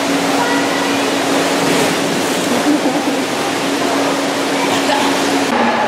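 Steady rush of water gushing out of a waterslide's run-out and churning into an indoor pool, with a steady low hum under it. About halfway through, someone comes off the slide and splashes into the pool.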